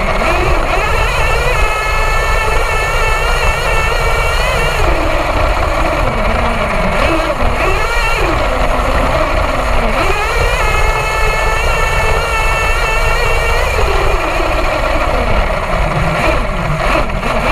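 HPI Savage XL nitro RC monster truck's glow-fuel engine, heard up close from the truck itself. It revs up sharply twice, about a second and a half in and again about ten seconds in, holding a high steady whine for a few seconds each time and dropping back between runs.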